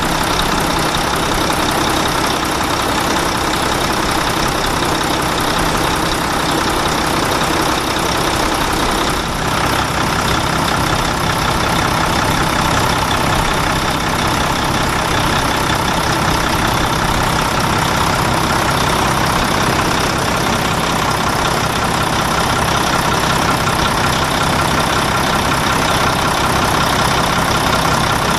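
Truck engine idling steadily, its pitch unchanging.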